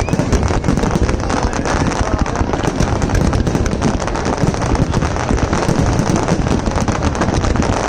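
Fireworks going off in a dense, continuous run of rapid crackles and pops, with wind rumbling on the microphone.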